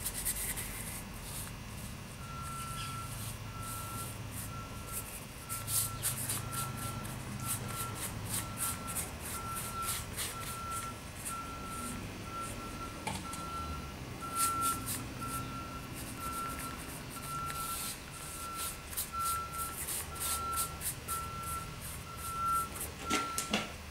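Paintbrush strokes scrubbing paint across a flat base, short and scratchy. Behind them, a high electronic beep repeats about twice a second, starting about two seconds in.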